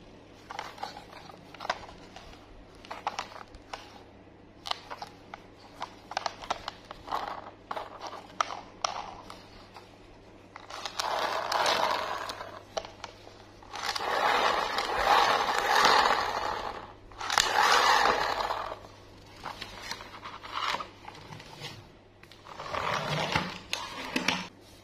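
A hard plastic toy train being handled and turned over: scattered clicks and taps of plastic, then four longer scraping rubs of a second or two each in the second half, the loudest near the middle.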